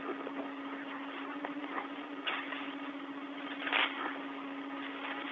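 Open spacewalk radio channel with nobody talking: a steady hiss with a low hum underneath, and two brief louder bursts of static, one about two seconds in and one near four seconds.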